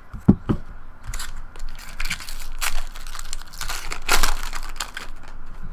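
Crinkling of a trading-card pack's foil wrapper being handled, in several short rustling bursts, the loudest about four seconds in, with a couple of soft knocks near the start.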